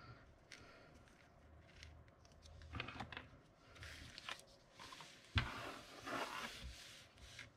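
Faint rustling and scraping of paper card being handled and lifted off a card on a tabletop, with a single sharp tap about two-thirds of the way in, followed by a short brushing swish of a hand sweeping across the table.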